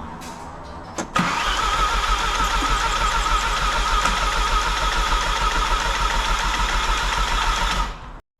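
Volkswagen EA189 2.0 TDI diesel being cranked by its starter motor for about seven seconds without firing, with an even rhythm and a wavering whine; it turns over with no compression, so it won't start. A click comes just before the cranking begins.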